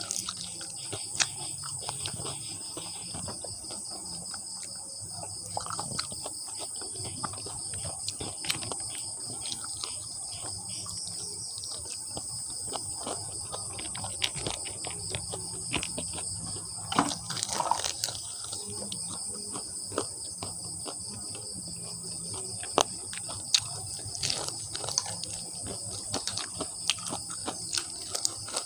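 Close-miked eating of crispy fried chicken feet: biting, crunching and chewing, with sharp crackles and mouth clicks scattered throughout and a busier cluster about two-thirds of the way in. A steady high-pitched insect chirring runs underneath.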